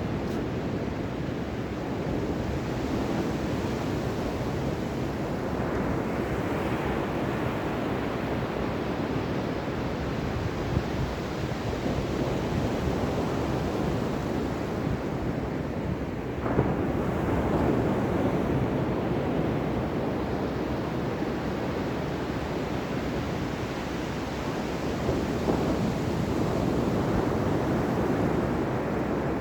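Ocean surf: continuous rushing of waves, swelling and easing, with a wave breaking suddenly about halfway through and another swell near the end.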